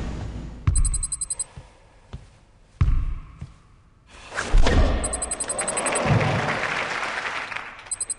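Sound-designed promo effects: three heavy, echoing thuds spaced a couple of seconds apart, and a noisy whoosh that swells and fades after the third. Three quick runs of rapid, high electronic blips, like digital text being typed out, come with the first thud, partway through the whoosh, and near the end.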